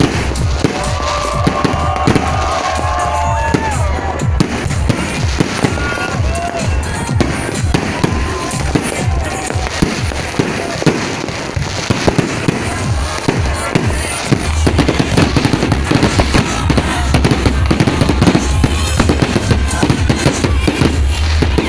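Fireworks display: a dense, continuous run of bangs and crackles from aerial shells over a deep rumble, growing thicker and louder in the last several seconds. Music plays along underneath.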